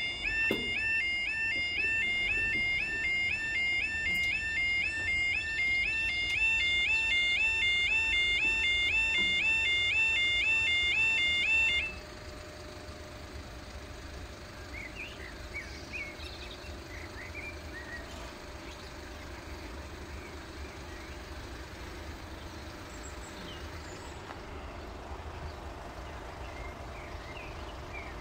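Level crossing yodel alarm warbling about twice a second as the barriers lower, cutting off suddenly about twelve seconds in once the barriers are down. After that only a quieter outdoor background with a few short chirps.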